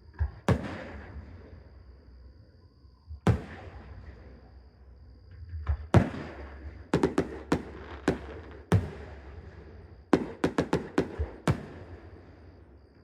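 Aerial firework shells bursting overhead: a few separate bangs at first, then quicker runs of sharp reports in the second half, each trailing off in an echo.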